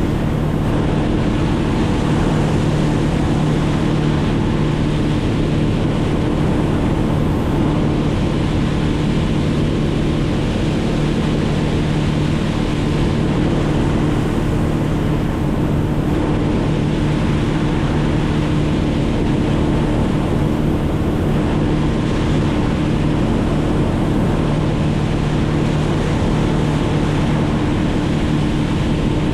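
An engine running steadily at an unchanging speed, a level drone with a constant hiss beneath it.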